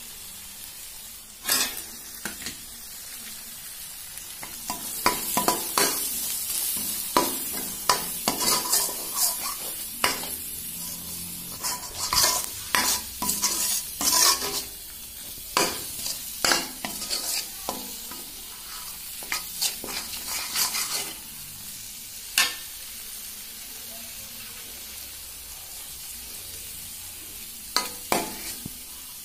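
Onion and ginger-garlic paste with masala powders frying in oil in a stainless steel pan, sizzling, while a spatula stirs and scrapes against the pan in quick, irregular strokes. The stirring pauses about three-quarters of the way through, leaving only a soft sizzle, then starts again near the end.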